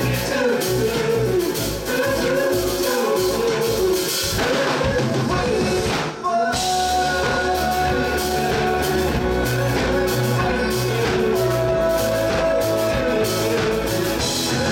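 Live rock band playing a song: sung vocals over electric guitar, keyboards and a drum kit, with the drums keeping a steady beat. About six seconds in the band stops for an instant, then comes straight back in.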